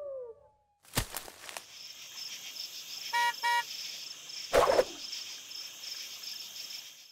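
Logo-intro sound design: a sharp hit about a second in, then an outdoor ambience bed with a fast, steady insect-like chirping. Two quick horn-like beeps come a little past three seconds, and a second hit follows about a second later.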